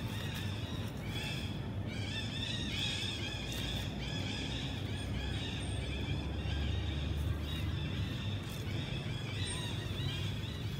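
Young macaques squealing and screeching over and over while they wrestle and bite in a fight.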